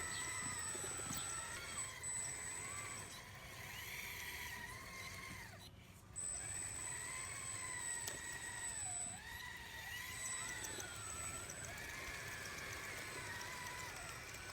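Electric drive motors and hydraulic pumps of radio-controlled model construction machines whining, their pitch rising and falling as the machines work, over a steady high whistle that drops out now and then.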